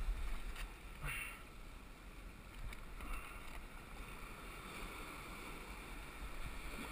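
Surf washing over shoreline rocks as a steady wash, with a few faint knocks in the first second or so.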